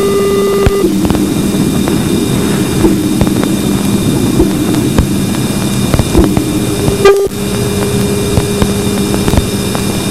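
Raw wideband audio from Voyager 2's Plasma Wave Subsystem near Neptune: a dense low hiss and rumble with steady interference tones from the spacecraft, and scattered clicks. A set of narrow harmonic tones, interference from the particle instruments, cuts off about a second in, and the signal briefly drops out with a click about seven seconds in.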